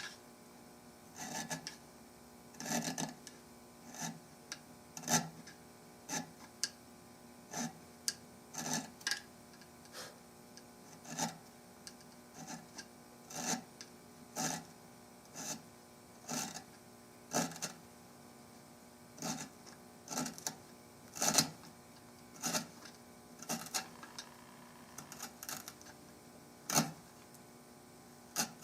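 Hand-tool strokes cutting into a curly walnut gun stock, short scraping strokes at about one a second, unevenly spaced, over a faint steady hum.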